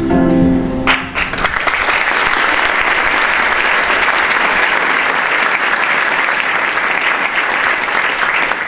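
Background music that stops about a second in, followed by an audience applauding steadily.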